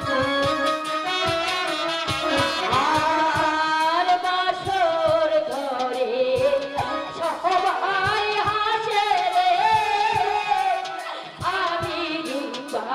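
A woman sings a Bengali folk-style song into a microphone over amplified jatra band accompaniment with drum strokes. The song comes in about a second and a half in, after a short instrumental passage.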